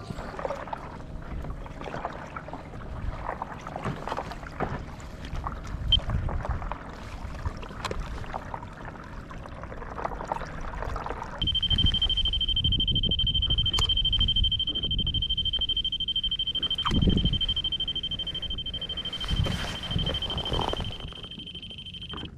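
Wind and water noise on the board, then, about halfway through, a steady high-pitched electronic tone starts abruptly and holds over a low rumble, with a brief break near the end.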